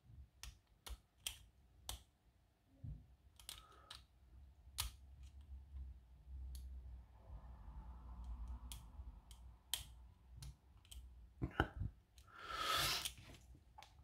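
Faint, scattered small metallic clicks from a thin hook pick working the pins in the keyway of a stainless-steel disc padlock under tension, roughly one click a second. Near the end there is a louder, longer rush of noise.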